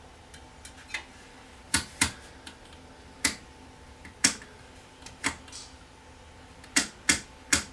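Rotary tuner (channel selector) switch on a 1965 GE black-and-white TV being turned, clicking through its detents. About eight sharp clicks at uneven spacing.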